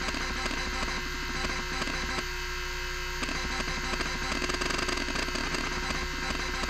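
Miniscribe 3425 20 MB MFM hard drive running: the spindle motor whines steadily and loudly, while the stepper motor moves the heads in rapid chattering clicks that pause for about a second around two seconds in.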